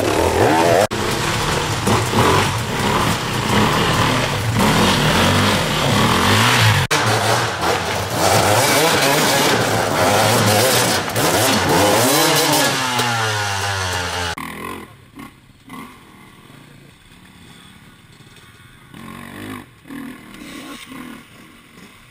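Off-road enduro dirt bike engines revving hard up close, the pitch climbing and falling repeatedly as the riders work the throttle over rough ground. About fourteen seconds in the loud engine sound cuts off suddenly, leaving faint, distant motorbike sound with a few small bumps.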